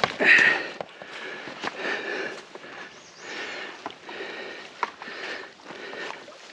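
Footsteps of a person walking through wet ground and brush: irregular swishing and squelching with small snaps, louder near the start.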